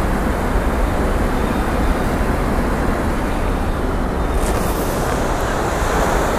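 Steady, loud wind buffeting the microphone, mixed with surf washing up the beach.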